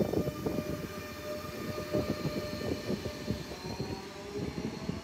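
Renfe class 447 electric multiple unit passing, its wheels knocking irregularly on the track under a faint electric whine that slowly falls in pitch.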